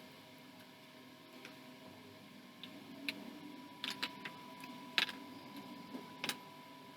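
Toy building blocks being handled and fitted together, giving a dozen or so sharp clicks and taps at irregular intervals over a faint steady tone.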